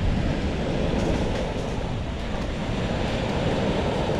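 Steady seaside ambience: surf washing on the beach, with wind buffeting the microphone.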